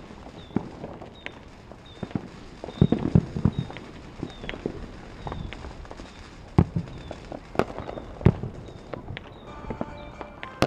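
Aerial fireworks shells bursting in a series of bangs and crackles, with a dense cluster of bangs about three seconds in and sharper single booms later.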